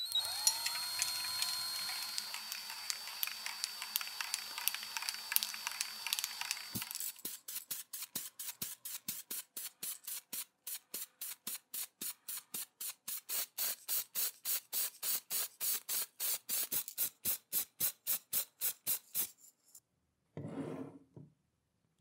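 A cordless drill, its trigger held down by a cable tie, spins up and runs steadily under the hiss of an aerosol spray-paint can. After about seven seconds the drill stops and the spray can hisses in short, rapid bursts, about three a second, for some twelve seconds. A brief rustle follows near the end.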